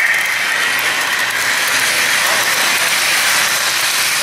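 Model train passenger cars rolling past on the track, a steady noise of small wheels running on the rails.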